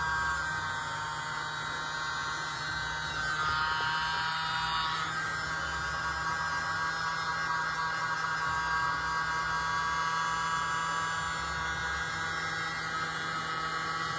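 Tiny handheld electric mini blower (a miniature leaf blower) running steadily with a high whine, pushing air across wet acrylic paint.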